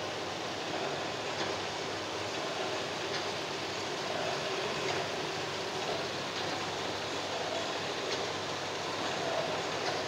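Silk reeling machine running, its row of six reels turning on a shaft as raw silk from cooked cocoons winds onto them. There is a steady mechanical whir with a faint click about every second and a half to two seconds.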